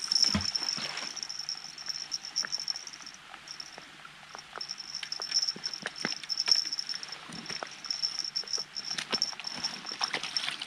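Rain falling, heard as many scattered ticks of drops, over a steady high-pitched pulsing whine that drops out briefly about three seconds in.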